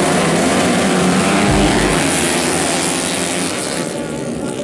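A pack of motocross dirt bikes accelerating off the start line together at full throttle, many engines sounding at once. The sound fades a little near the end as they pull away.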